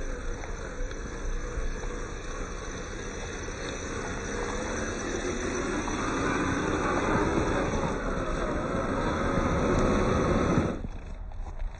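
Electric motor and gear drivetrain of an RC scale crawler whining under load as it crawls over loose gravel and rock, growing louder over several seconds. The drive noise drops away sharply shortly before the end.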